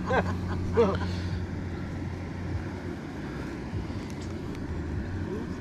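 A steady low mechanical hum, with a voice briefly in the first second.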